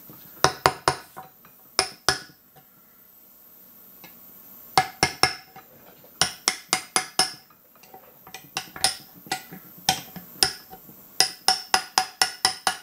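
Small hammer tapping a pick or punch against the Saab B234 oil pump in the timing cover. The taps are light and metallic with a short ring, coming in quick groups of several strikes with short pauses between. The tapping is working a stuck pump part loose.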